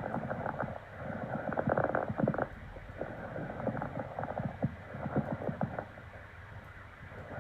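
Normal vesicular breath sounds heard through a stethoscope: a soft rustle of air moving in the lungs, rising and falling in slow swells with inhalation and exhalation.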